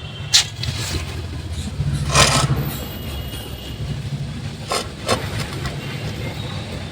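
Knocks, clinks and scraping of hand-tool work on a car's front suspension over a steady low hum, with a longer scraping stretch a couple of seconds in.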